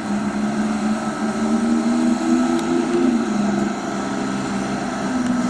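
Hot-rodded 1926 Ford Model T with a swapped-in V6 engine driving at low speed. The engine note climbs a little about two seconds in, eases off, then climbs again near the end.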